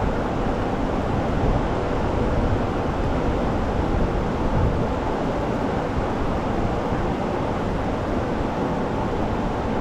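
Steady rushing air noise, even throughout, with no distinct knocks or clicks.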